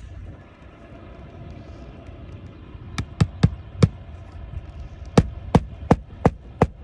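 Hammer driving roofing nails through asphalt shingles by hand: four quick, sharp strikes about halfway through, then five more evenly paced strikes near the end.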